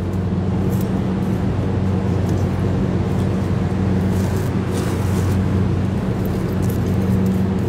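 Steady mechanical hum at an even pitch, like a motor or fan running, with faint scratchy rustles of bark-and-moss potting mix being firmed around an orchid's roots by hand.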